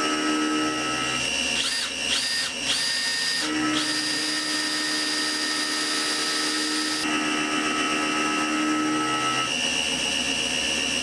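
Cordless drill boring into a metal part held in a vise: the motor whine rises in a few short trigger pulls, then runs steadily while it cuts, over a steady machine noise.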